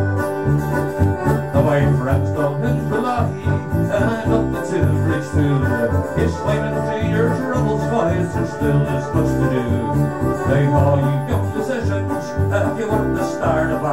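An Irish rebel folk band plays an instrumental passage of a ballad: plucked strings over a steady bass line, with no singing.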